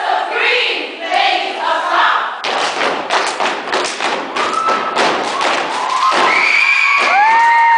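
Cheer squad chanting in unison, then from about two and a half seconds in a sudden, dense run of loud stomps and claps from the routine. Near the end, high-pitched screams and cheers from the crowd rise over it.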